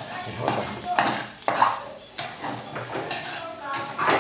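Spatula scraping and knocking against a frying pan in repeated strokes as leftover rice is stir-fried, over the steady sizzle of the rice frying in oil.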